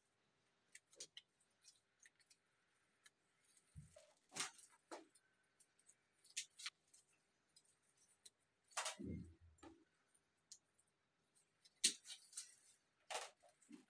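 Steel wire being snipped into short pieces with cutters: several sharp snips a second or more apart.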